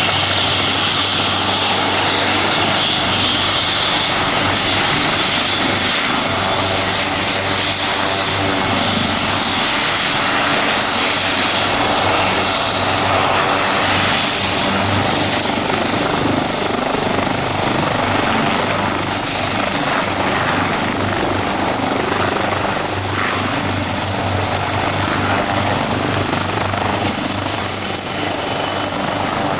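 A turbine helicopter running loud and steady, with the rotor's low beat under a high whistling turbine whine that creeps slightly higher in pitch from about halfway.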